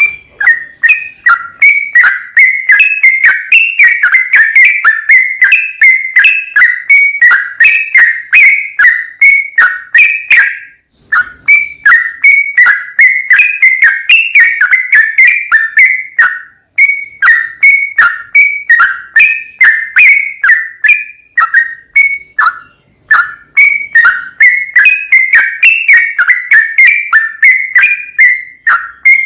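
Yellow-vented bulbul (trucukan) singing a long, fast run of bubbly, chattering whistled notes, loud and nearly unbroken, with a few brief pauses.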